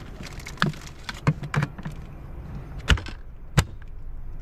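Cans knocking and clinking together as a can of beer is fished out of a fridge: a few light clinks, then two sharper knocks near the end.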